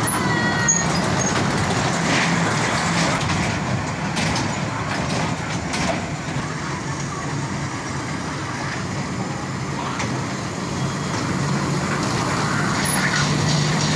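Children's amusement ride running: a steady mechanical rumble with a low hum that comes and goes.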